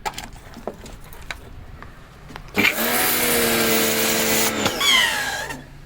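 Ibell Wind55 electric pressure washer running and spraying a high-pressure water jet for about two seconds, a loud hiss over a steady motor hum, then stopping with a brief falling whine.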